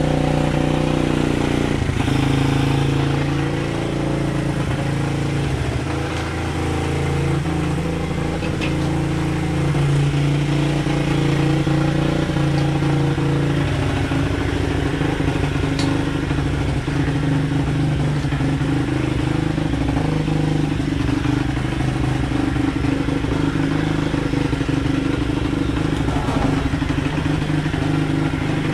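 Small single-cylinder four-stroke engine of a 125cc SSR pit bike idling steadily, with a slight drop in level a few seconds in.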